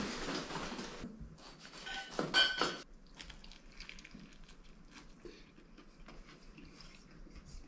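Metal sheet pan clinking and rattling a few times about two seconds in, then faint mouth sounds of a sandwich being bitten and chewed.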